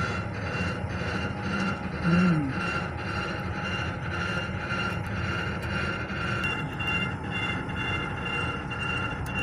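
A boat's engine running steadily, with a rhythmic throb about twice a second over a constant hum. About two seconds in, a short rising-and-falling call-like tone stands out briefly.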